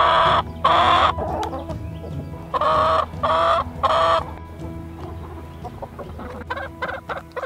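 A flock of chickens clucking and calling, with loud drawn-out calls in two groups: two right at the start, then three in a row about three seconds in. Softer short clucks follow.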